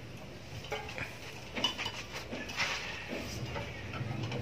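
Light, faint clinks and handling noise from a small steel corner trowel and foam sponge, with a few faint animal calls in the background.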